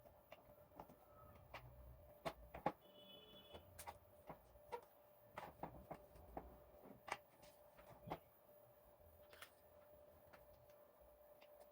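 Faint, irregular clicks and light taps, like small parts being handled, over a faint steady hum.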